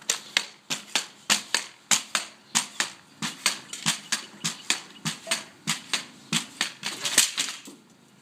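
Pogo stick bouncing on concrete: a steady run of sharp clacks, about three a second, each time it lands. The loudest clack comes near the end, and then the bouncing stops.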